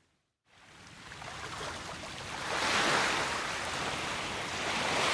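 Sea waves washing onto the shore: after a brief silent gap at the start, the surf rises in and swells twice, about two and a half seconds apart.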